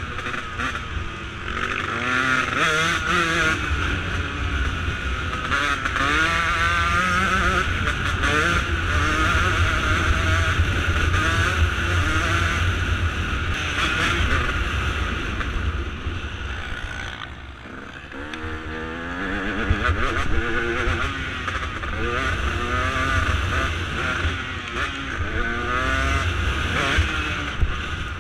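Dirt bike engine being ridden hard, its pitch rising and falling again and again with throttle and gear changes. The throttle eases off briefly about two-thirds of the way through before it picks up again.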